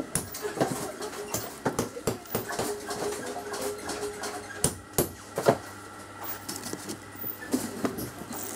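Workshop clatter: scattered light knocks and clicks, with three sharper taps around the middle.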